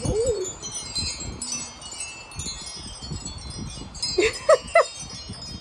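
Metal tube wind chime ringing continuously in the breeze, its high tones overlapping. About four seconds in, three short, loud calls cut in over it.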